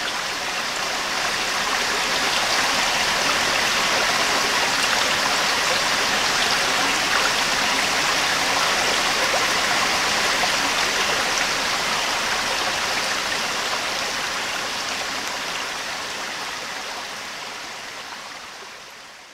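Small rocky creek running over low cascades between stones, a steady rush and splash of water that gradually fades out near the end.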